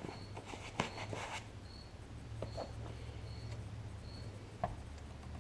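Light handling noises from a hunting knife and a clamp on a workbench: a few small clicks and taps as the clamp is worked onto the freshly epoxied handle. Under them run a low steady hum and a faint short high peep that repeats roughly every second.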